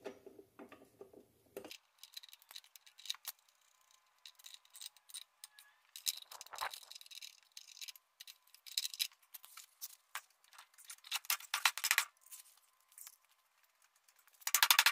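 Small metal clicks and rattles of carriage bolts, washers and nuts being fitted through garden-tractor wheel weights onto the wheel rim, irregular and light. Near the end comes a short, quick run of rapid clicks.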